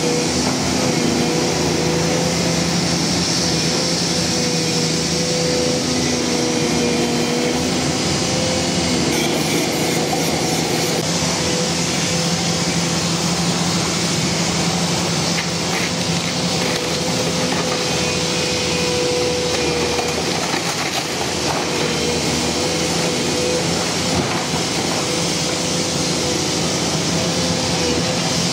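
Volvo EC460C demolition excavator running steadily under load: diesel engine and hydraulic pumps with a steady whine as the grapple works the wrecked roof.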